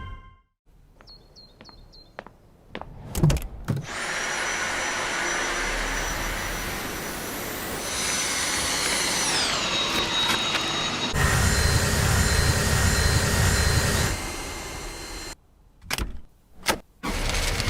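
Cordless handheld vacuum cleaner running with a high motor whine that glides down in pitch about halfway through, a heavier low rumble joining soon after, then cutting off near the end, followed by a few short clicks.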